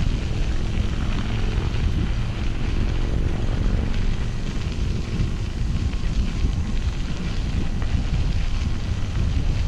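Wind buffeting the microphone: a steady, fluttering low rumble with an even hiss above it, plus a faint steady hum in the first couple of seconds.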